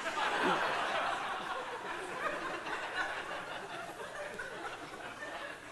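Audience laughing in a theatre hall, the laughter loudest at first and slowly dying away.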